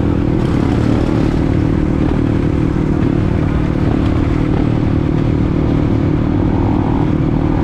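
Dirt bike engine running steadily at road speed, heard from on the bike itself, with no clear revving or gear changes.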